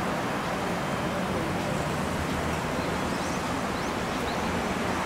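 Lockheed P-3 Orion's four turboprop engines running as it rolls along the runway at a distance, a steady drone with no rise or fall.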